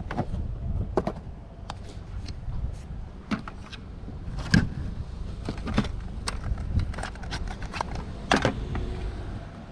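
Items on a garage-sale table being picked up and handled: irregular clicks, knocks and rustles of boxes, plastic bags and small objects, the sharpest about halfway through and near the end, over a low steady rumble.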